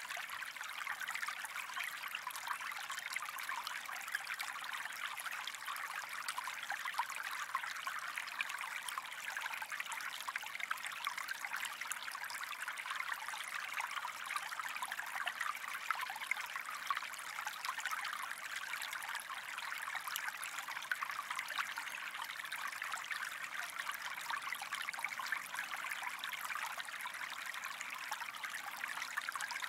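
Small stream flowing steadily, a continuous gentle babble of running water with fine trickling detail.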